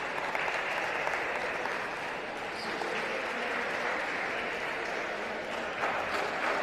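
Spectators applauding steadily after a point is won in a table tennis match.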